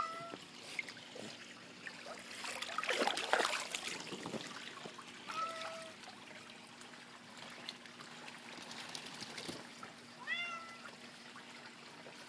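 A domestic cat meowing three times, short rising-then-falling meows spaced several seconds apart, with a louder stretch of rustling noise a couple of seconds in.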